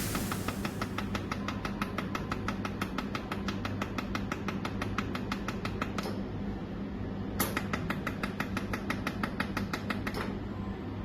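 Pulsed YAG laser welder firing a rapid, even train of sharp clicks, about six a second, over a steady low machine hum. The clicks grow fainter partway through and stop near the end.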